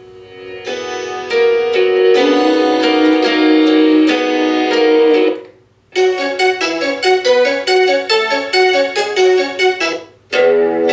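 Piano music playing through the MTV SoundLogic Fashiontronix Soundbox, a portable Bluetooth speaker, starting about a second in. It cuts off twice and starts again with different music each time as tracks are skipped with the speaker's buttons.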